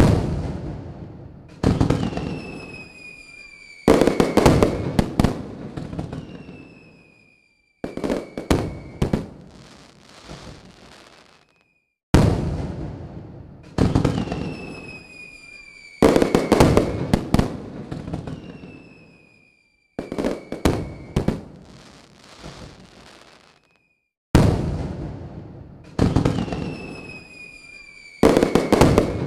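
Aerial fireworks bursting: clusters of loud bangs and crackle every few seconds, each dying away, with whistles that fall slightly in pitch. Some clusters stop abruptly.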